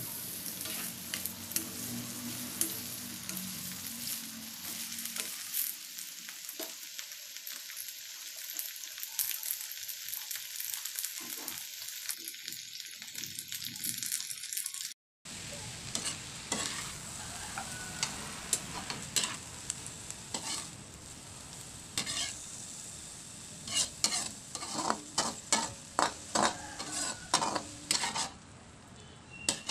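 Cabbage and carrot strips sizzling in hot oil in a wok as they are stir-fried. A spatula scrapes and knocks against the wok, the strokes coming thick and loud over the last several seconds.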